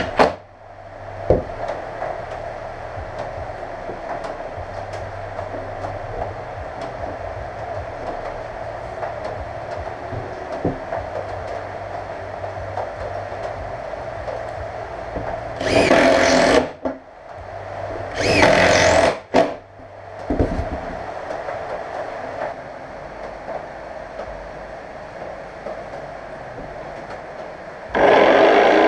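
A steady hum, broken by two loud bursts of a power tool about a second each around the middle, then an electric jigsaw starting up and running near the end.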